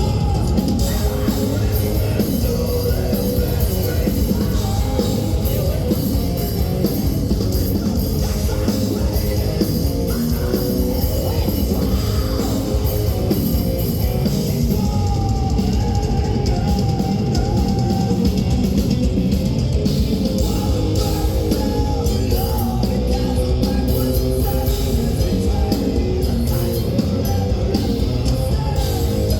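Live progressive death metal band playing at full volume: distorted electric guitars over fast, dense drumming.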